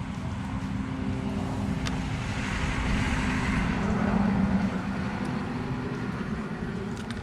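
Engine rumble of a passing vehicle, swelling to its loudest about halfway through and then fading away.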